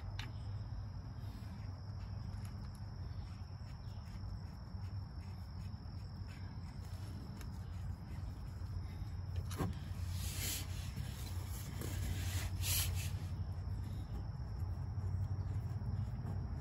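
Steady outdoor insect chirring with a low hum underneath. A little past halfway there is a sharp click, then two short scraping sounds a couple of seconds apart, from hand work on the parts being fitted.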